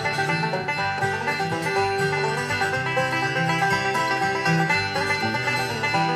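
Background bluegrass music led by a quickly picked banjo, playing steadily with no speech over it.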